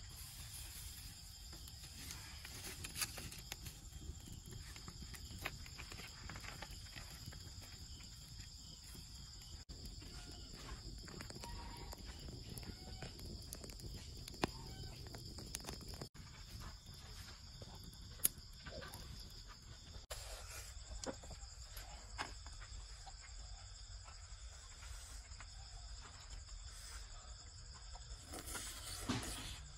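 Steady chorus of night insects, a continuous high buzz on two pitches, with scattered small clicks and crackles through it.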